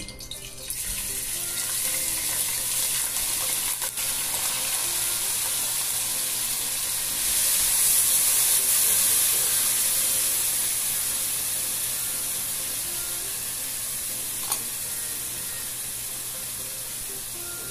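Chopped onions hitting hot olive oil in a pot and sizzling steadily as they are stirred with a spatula, the first stage of a refogado. The sizzle starts just under a second in, grows louder about seven seconds in, then slowly eases; a light knock or two sounds on top.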